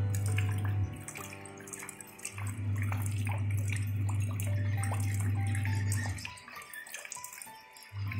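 Rain falling into a shallow puddle, a dense patter of small drop splashes, under a loud deep steady hum that drops out twice, about a second in and again from about six seconds until just before the end. Faint music notes sound now and then.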